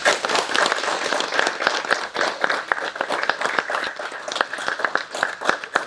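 A small group of people applauding, with many separate hand claps, dying away near the end.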